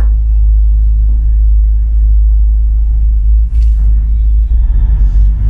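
Loud, steady low rumble, with a short hiss about three and a half seconds in.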